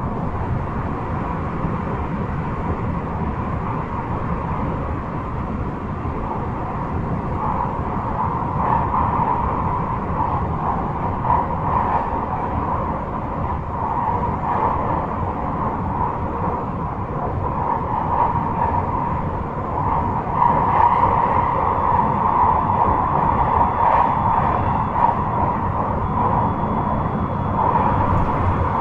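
JR 223 series 5000-subseries electric train running at speed, heard from inside the car: a steady rumble of wheels on rail with a hum, growing a little louder about two-thirds of the way through.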